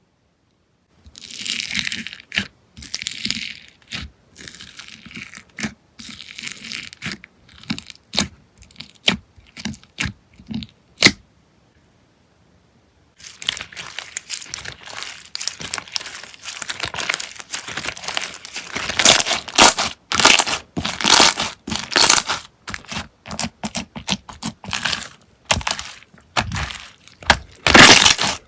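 Slime being squeezed and pressed by hand, making quick runs of crackles and pops in bursts. It stops for about two seconds near the middle, then resumes denser and louder.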